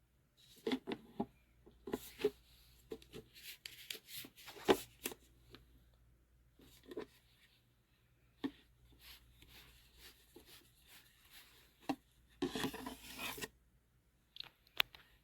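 Plastic tumbler and snap-fit lid being handled: scattered clicks, taps and rubbing, with a denser scraping rustle lasting about a second near the end.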